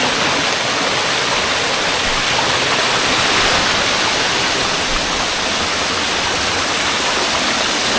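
Steady rush of flowing water, a rocky hill stream running close by.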